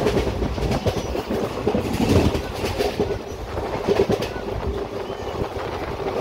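Passenger coach of an express train running fast, heard from its open doorway: a steady rumble of wheels on the rails with a hum, and irregular clacks as the wheels pass over rail joints, loudest around two and four seconds in.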